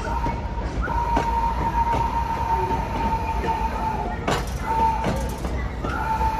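Train of cabooses rolling slowly past on jointed track, with a low rumble, scattered clicks and clunks from the wheels and couplings, and a steady high wheel squeal that drops out for a moment a little past halfway.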